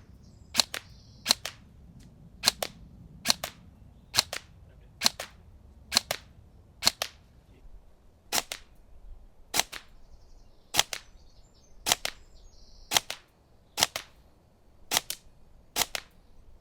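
Tokyo Marui Next Gen Recoil Shock electric airsoft guns (AEGs) firing single shots at a steady pace of about one a second, each a sharp crack with a quick double edge, some sixteen shots in all.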